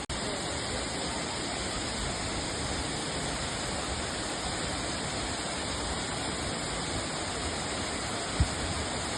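Waterfall with a steady, even rush of falling water. There is one brief low thump near the end.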